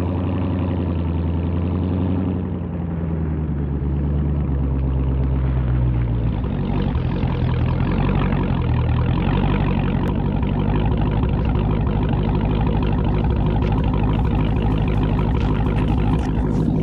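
Dodge Hellcat's supercharged 6.2-litre Hemi V8 exhaust. The engine is held at raised revs, drops back about two seconds in, then runs on steadily.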